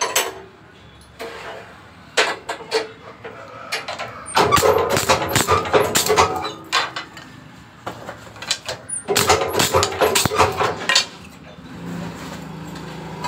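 Picture-frame mitre cutting machine (press-operated guillotine) chopping wooden frame moulding: three clusters of quick, sharp cutting clacks and knocks with short pauses between, as the moulding is repositioned between cuts.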